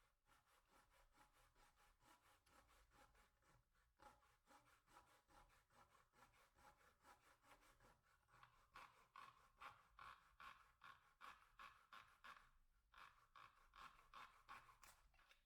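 Faint, rhythmic back-and-forth strokes of a hand tool working the wood of a guitar body, about three a second, growing stronger about halfway through, with a short pause before the last few strokes.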